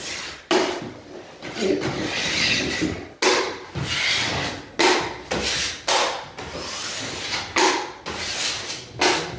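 Metal drywall taping knife scraping joint compound along a metal corner bead and across a mud pan, with about six sharp scrapes of the blade over the pan's edge.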